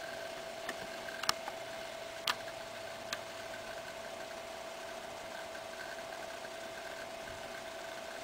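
Three sharp computer-mouse clicks between about one and three seconds in, over a steady high hum and faint hiss.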